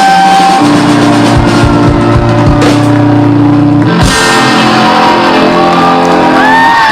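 Live rock band (electric guitars, bass and drum kit) playing long, held chords, with the drums hitting accents under them. Near the end, whoops and cheers from the audience begin over the music.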